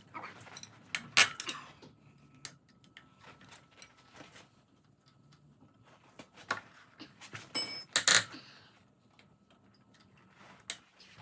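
Metal hand tools clicking and clanking against the front fork's pinch bolts as they are loosened. The sounds come as scattered taps, with one loud, ringing metal clink about eight seconds in.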